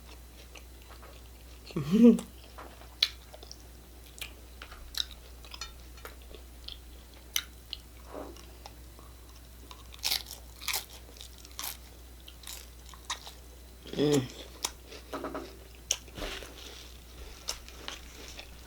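Crunchy hard-shell tacos being bitten and chewed close to the microphone: irregular sharp crunches with quieter chewing between them. Two short vocal sounds from the eater, about two seconds in and again near fourteen seconds.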